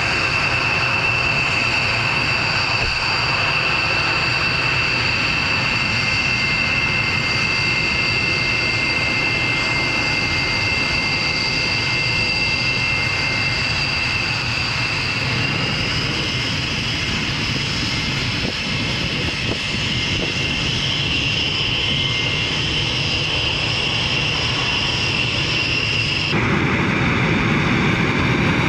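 B-1B Lancer's four General Electric F101 turbofan jet engines running as the bomber rolls along the runway: a steady jet roar with a high whine that rises slightly about halfway through. Near the end the sound turns louder and deeper.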